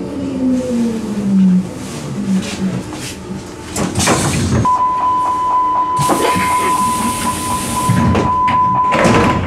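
Hamburg U-Bahn train coming to a stop with a falling whine from its motors, then a knock as the sliding doors work. A steady high warning tone sounds for about four seconds, the door-closing signal, with a hiss of air partway through and a thud of the doors near the end.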